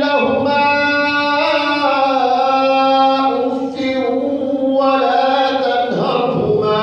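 A man's voice chanting Quran recitation in long, melodic drawn-out phrases, holding notes and stepping between pitches. There is a brief break about three and a half seconds in.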